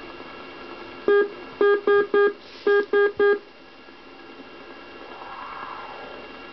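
Direction finder receiver's speaker sounding an air beacon's Morse code identifier near 400 kHz as a keyed buzzy tone: one tone, then two quick groups of three, over steady static hiss. Near the end the static swells softly as the receiver is tuned.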